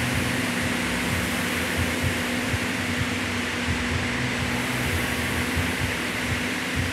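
Air-resistance rowing machine's fan flywheel whirring steadily as it is rowed, with a steady hum underneath.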